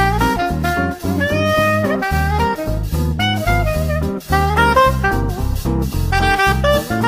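Upbeat swing-style jazz music, with a horn-like melody over a moving bass line and drums.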